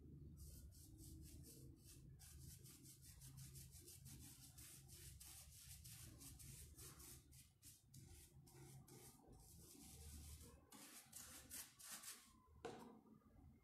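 Faint, quick, scratchy strokes of a small paintbrush dabbing watery PVA paint onto rough wood, repeated several times a second.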